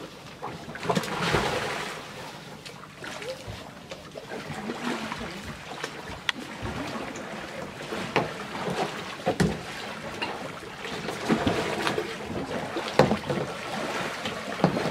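Water splashing around sit-on-top plastic kayaks: a loud rush of water about a second in as one kayak is tipped over, then repeated paddle blades striking and pulling through the water as the other kayak is paddled alongside. Wind buffets the microphone throughout.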